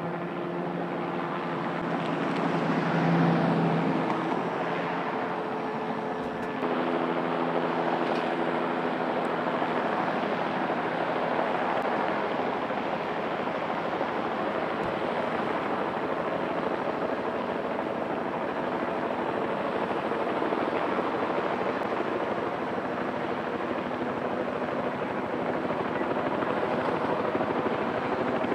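Light single-turbine helicopter flying, with continuous rotor and turbine noise and steady turbine tones. The tones change abruptly about six and a half seconds in, and the sound is a little louder about three seconds in.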